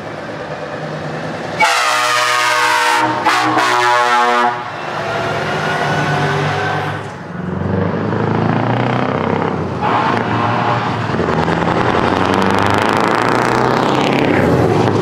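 Air horn of a Scania truck, sounded in two blasts with a brief break, starting about a second and a half in. After that the truck's diesel engine grows louder from about seven seconds in and stays loud as it drives close past.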